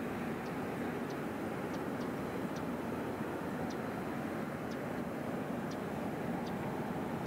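Steady outdoor rumble with no clear pitch, with faint short high chirps recurring roughly once a second.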